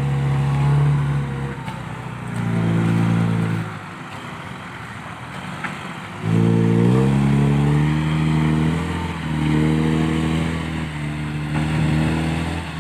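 Loaded dump truck's diesel engine revving hard under load as the truck labours through loose sand. The revs sag and it goes quieter about four seconds in, then it revs up sharply again around six seconds and stays high.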